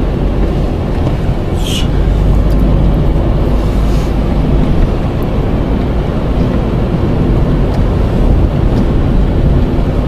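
Car engine and tyre noise on an unpaved road, heard inside the cabin: a loud, steady low rumble.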